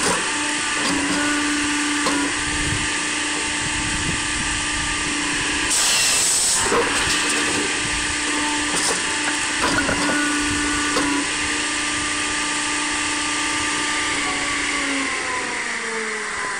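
Homemade firewood processor running: its saw and roller-bed drive make a steady mechanical whine, with a louder rasp about six seconds in as the saw cuts through a log and a few shorter bursts a few seconds later. Near the end the pitch falls as the machine winds down.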